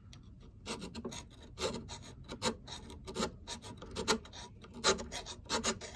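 Double-cut hand file rasping on the cast iron of a bench plane, in short strokes about twice a second starting about half a second in, taking the metal down to a scribed line about 30 thousandths deep.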